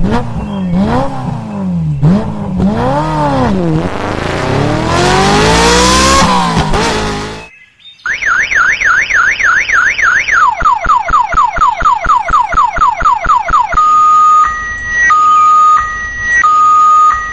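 A motor revving up and down several times, then, from about 8 seconds in, a police siren: a fast wail, a quick run of falling yelps, and from about 14 seconds a two-tone hi-lo pattern.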